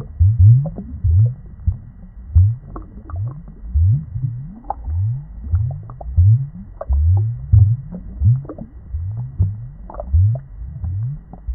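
Aquarium water bubbling, heard muffled and deep: an uneven string of low, rising bloops, roughly one to two a second, with faint clicks between them.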